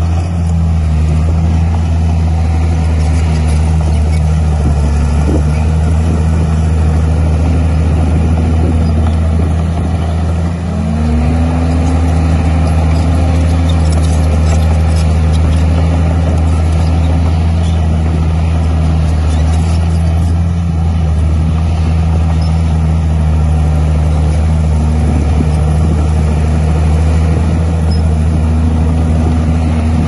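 Heavy diesel engine of a Komatsu D51 bulldozer running hard while it works soil, its pitch rising and falling with the load, with a brief drop and pick-up about ten seconds in.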